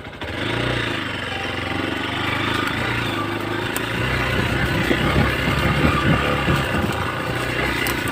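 Hero XPulse 200 motorcycle's single-cylinder engine running, pulling unevenly through the middle of the stretch.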